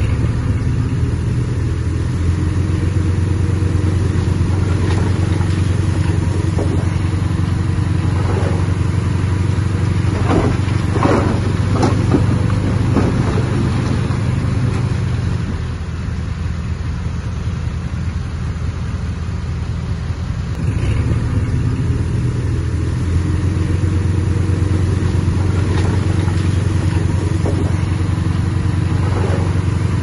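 Bulldozer's heavy diesel engine running steadily under load. The engine eases off for several seconds past the middle, then picks up again, with a few short squeaks about ten to thirteen seconds in.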